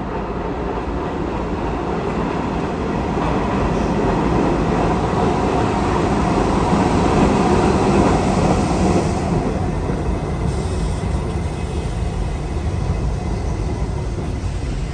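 New York City subway train running through the station, a continuous rumble that grows to its loudest about halfway through and then slowly fades.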